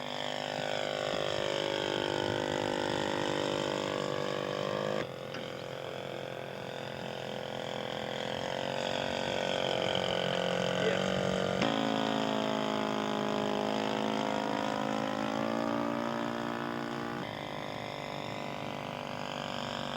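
Engine of a radio-controlled scale model biplane (Curtiss Jenny) running steadily in flight. Its pitch slowly falls and rises as the plane passes back and forth, with sudden jumps in pitch and level about five, twelve and seventeen seconds in.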